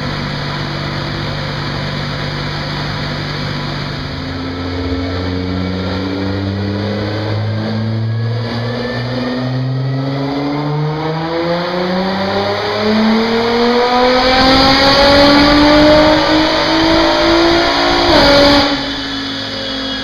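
Stage 1 tuned Nissan GT-R R35's twin-turbo 3.8-litre V6 with aftermarket downpipes, midpipe and HKS exhaust, on a chassis dynamometer. It runs at a steady speed for about four seconds, then makes a long full-throttle pull with the pitch climbing steadily and loudest in the last few seconds. It cuts off sharply near the end and the engine note falls away.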